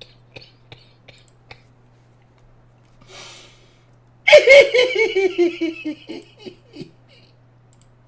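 A man laughing: a few short stifled laughs, a breath, then about four seconds in a loud burst of laughter that falls in pitch and trails off over two or three seconds.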